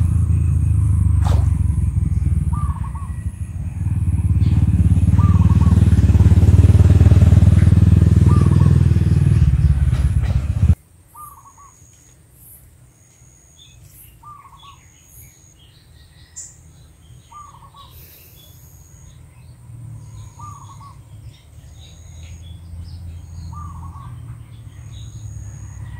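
A bird repeating a short call about every two to three seconds, with a high chirp repeating about once a second. For the first eleven seconds a loud low rumble covers them, then cuts off abruptly.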